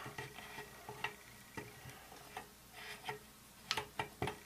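Light, irregular clicks and taps as the receiver tube of a spring-piston air rifle, with the piston inside, is handled and shifted on a wooden workbench, with faint rustling; the clicks bunch together near the end.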